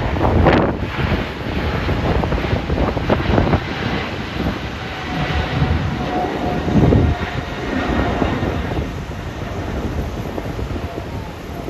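Jet engine noise from a Boeing 777 freighter, a steady rushing rumble with a faint whine, while gusty wind buffets the microphone.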